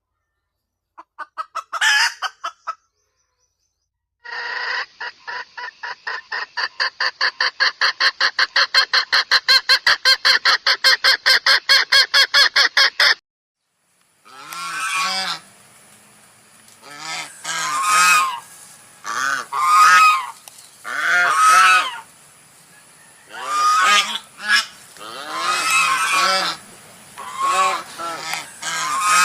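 Domestic geese honking, loud arching calls about a second long repeated over and over in the second half. Before that, after a few short calls, comes a fast, even run of sharp pulses, about five a second, lasting some nine seconds from an unidentified bird.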